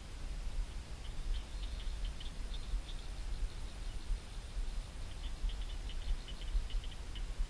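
Outdoor ambience by a swampy lily pond: a low wind rumble on the microphone, with two spells of quick, high-pitched ticking chirps from a small creature, one from about a second in and one from about five seconds in.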